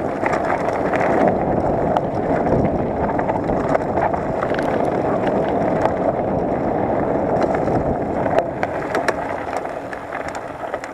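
Mountain bike descending fast on a dry, stony dirt trail: a steady rush of tyre and wind noise, with frequent sharp clicks and rattles as the bike goes over stones.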